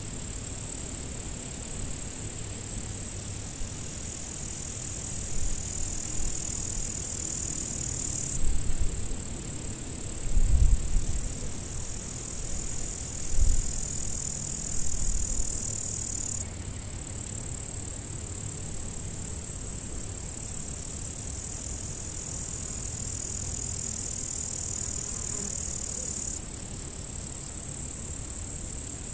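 Dense chorus of crickets: a steady, high-pitched shrilling whose level changes abruptly every few seconds. A few low thumps come near the middle.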